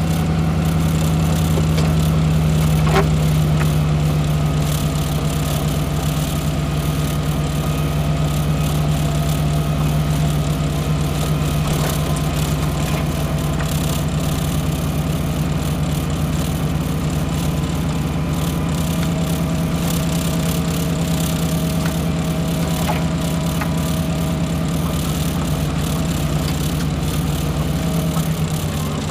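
Heavy gravel truck's diesel engine running steadily as the truck drives along, a constant deep drone.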